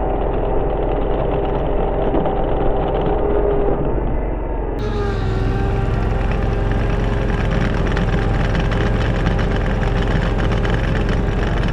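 Walker GHS MT riding mower's engine running steadily as the mower pivots in place, one drive wheel going forward and the other backward in a zero-turn spin. Its tone shifts slightly about five seconds in.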